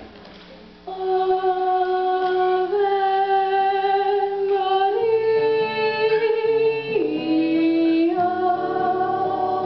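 A woman singing long held notes with an acoustic guitar accompanying her; the singing starts about a second in.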